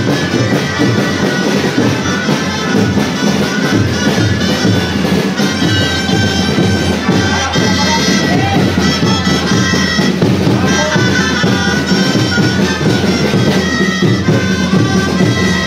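Traditional street-parade music played live: shrill reed pipes in the manner of bagpipes carrying a melody over a steady low drone, with a regular drum beat underneath. The drone holds strongly from about halfway through.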